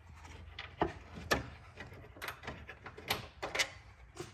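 About half a dozen scattered clicks and knocks as the radiator and its fan shroud are pushed and shifted by hand in the engine bay.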